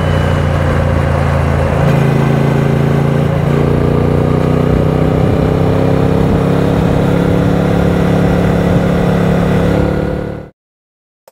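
Triumph Speed Twin 900's parallel-twin engine running at highway speed, its pitch rising slowly as it pulls. The sound cuts off suddenly about ten seconds in, and a short click follows near the end.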